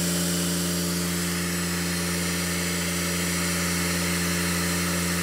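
3018 desktop CNC router's spindle running steadily while its end mill cuts aluminum: a steady hum with several pitched lines and a high hiss. The cut is chattering, which the owner puts down to too aggressive a cut and a slightly crooked spindle.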